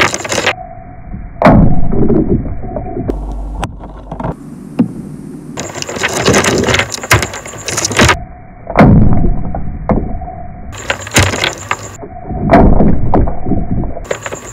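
A run of sharp cracks and crunching, breaking impacts with low rumbling swells between them, cut together in abrupt sections as an added sound-effect track.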